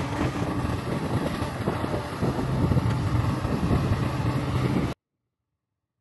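Diesel engines of a bulldozer and a Caterpillar excavator at work, running steadily with wind noise on the microphone. The sound cuts off abruptly about five seconds in.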